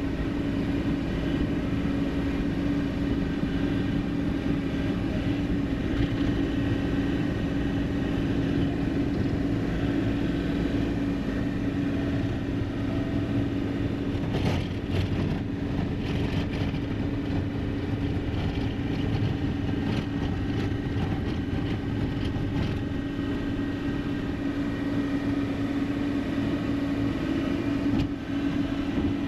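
Loaded triaxle dump truck's diesel engine running steadily on the road, a constant drone with road noise.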